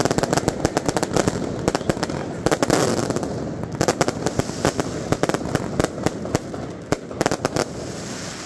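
Firecrackers and fireworks going off in a rapid, irregular stream of sharp bangs and crackles, many in quick succession, over the voices of a crowd.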